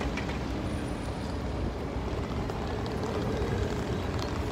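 Steady city street noise: a low rumble of traffic and buses mixed with wind buffeting the phone's microphone.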